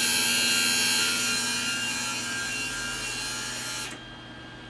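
MIG welder's wire-feed drive motor running, pulling wire off the spool through the drive rolls, then stopping suddenly about four seconds in. The wire is feeding properly again.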